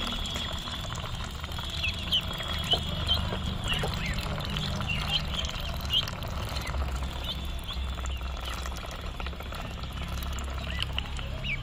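Ducklings peeping: short high chirps, repeated irregularly, over a low steady rumble.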